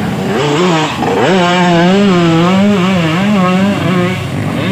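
Two-stroke dirt bike engine revving hard on a muddy hill climb, rising in pitch about a second in, then held high with the revs wavering up and down as the throttle is worked.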